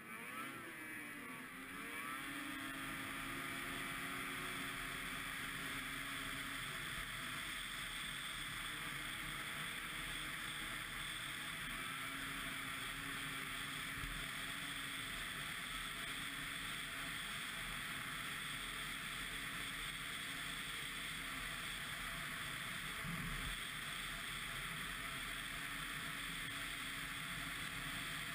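Ski-Doo MXZ 600 XRS snowmobile's two-stroke engine revving up over the first couple of seconds, then running steadily at speed.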